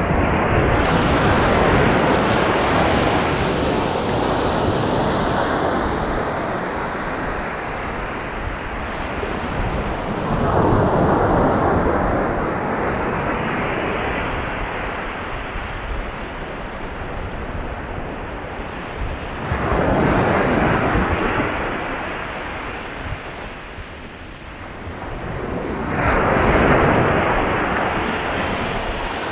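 Sea waves breaking on a beach: a steady wash of surf with four loud swells as waves break, roughly every eight to nine seconds.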